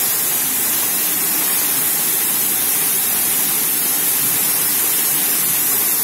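Waterfall in full spate, swollen by thunderstorm rain, its water falling in a steady, loud rush.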